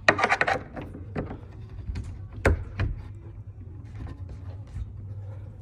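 A few sharp knocks and clatters of bed-frame parts being handled and fitted, the loudest about two and a half seconds in, over a steady low hum.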